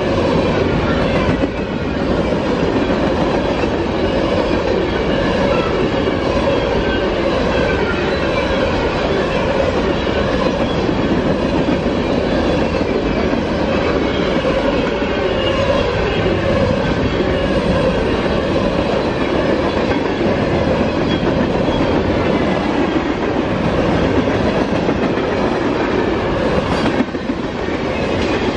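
Freight cars of a CSX mixed freight passing close at speed: a steady, loud noise of steel wheels running on the rails.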